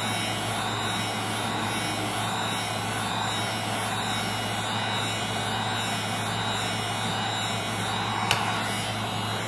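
Steady whirring blower noise with a constant low hum, and one sharp click about eight seconds in.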